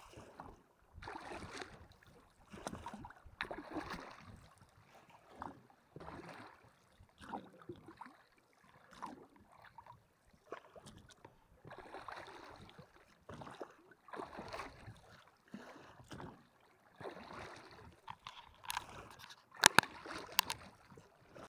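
Oar strokes from rowing an inflatable boat: a splash and swish of water with each stroke, about every one and a half seconds. Near the end come a few sharp knocks, the loudest sounds here.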